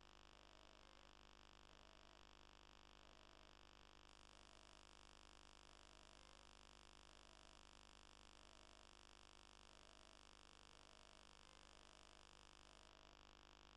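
Near silence: only a faint steady hum and hiss.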